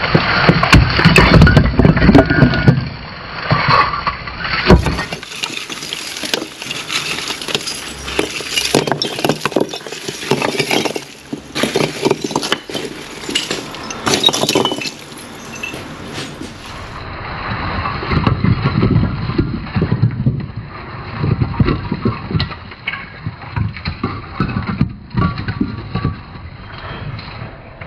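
Old brick wall being pulled down by hand: bricks tumbling and clattering onto a rubble pile, loudest in the first couple of seconds. Scattered knocks follow as loose bricks are prised off and dropped onto the heap.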